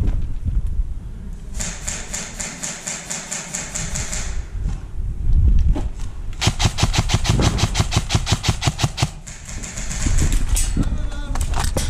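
Airsoft electric guns firing full-auto bursts of rapid, evenly spaced shots. A fainter burst comes about a second and a half in and lasts about two and a half seconds. A loud burst of about eleven shots a second follows at the middle and lasts a similar time.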